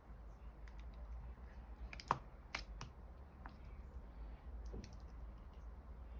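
Scattered small clicks and taps from handling a handheld scan tool's plastic case and parts during a battery swap, the sharpest a little after two seconds in and again half a second later, over a faint low hum.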